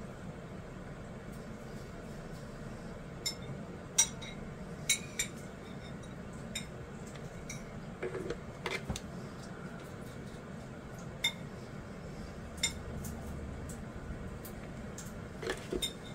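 Scattered light clicks and taps from handling a cordless hot glue gun and small lace flower pieces on a cutting mat, the sharpest about four seconds in, over a faint steady hum.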